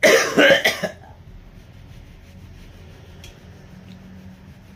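A man coughing hard into his fist: a short fit of several quick coughs in the first second. His throat is sore and his voice is going.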